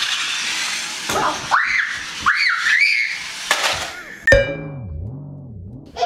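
A toy RC car's electric motor whirring as it drives on carpet, fading out in the first second. Then a few whistle-like swoops rise and fall, a sharp hit lands about four seconds in, and a low wobbling electronic tone follows.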